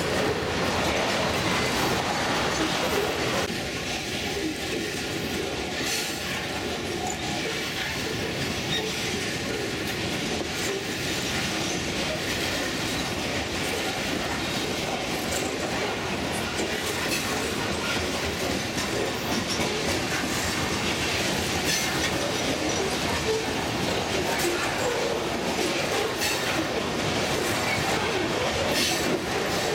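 Freight train of coal hopper cars rolling past at steady speed: continuous rumble and rattle of steel wheels on rail, with a run of clicks as the wheels cross rail joints.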